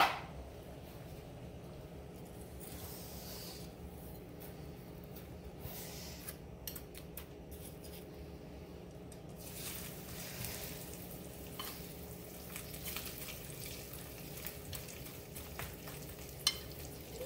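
Metal tongs clicking against a glass bowl of panko breadcrumbs, then a panko-breaded chicken cutlet set into a pan of hot oil, sizzling softly from about ten seconds in, over a steady low hum.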